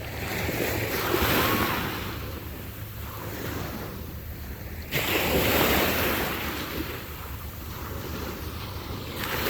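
Small waves breaking and washing up the sand, with wind rumbling on the phone's microphone. The surf swells about a second in and again, more sharply, about five seconds in.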